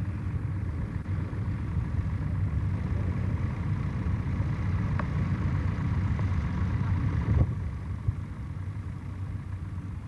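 Tractor's diesel engine running steadily under load as it pulls a mounted plough through the ground. About seven seconds in there is a brief louder moment, then the sound drops and turns duller.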